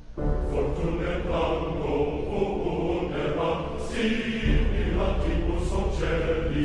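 Music with a choir-like chant over a deep low pulse, starting just after a previous piece fades out; the low end grows heavier about halfway through.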